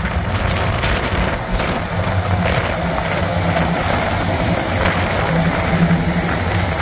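Diesel-electric locomotive of a CN freight train running past, a steady low engine drone with a few faint clicks from the train.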